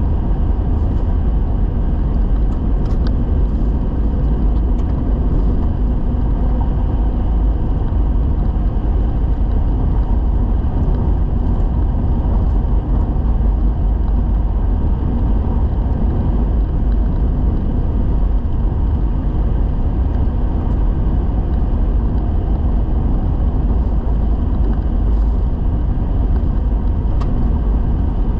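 Steady low rumble of a vehicle driving along a gravel dirt road: tyre and road noise mixed with engine drone, with a few faint ticks.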